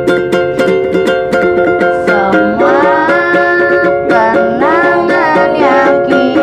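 A ukulele strummed in quick, even strokes, with several voices coming in singing along about two seconds in.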